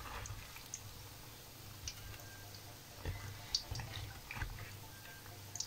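Ring doughnuts frying in hot oil in a pan: a faint steady sizzle with scattered crackles and clicks. There are a couple of soft knocks about three and four and a half seconds in as the doughnuts are turned and lifted.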